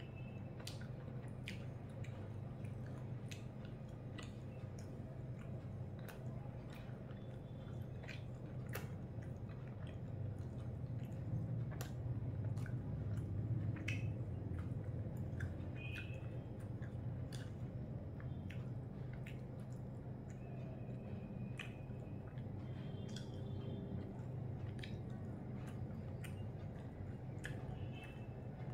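Close-miked eating: chewing, and the wet squish of fingers mixing rice on a plate, with small scattered clicks over a steady low hum.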